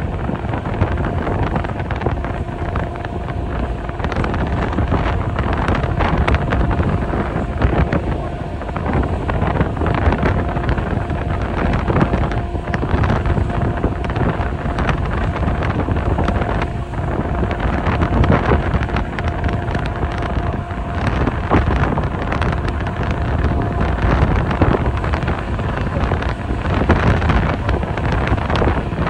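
Wind buffeting the microphone over the steady drone of a passenger ferry under way, with a faint constant hum running through it.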